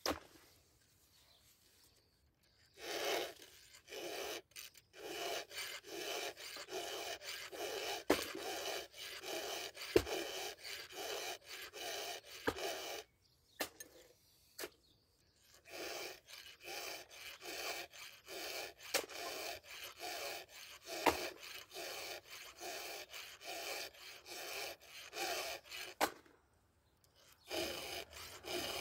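Hand file rasping across the cutters of a chainsaw chain in even filing strokes, about two a second, sharpening the chain. The filing stops briefly twice, with a few light clicks among the strokes.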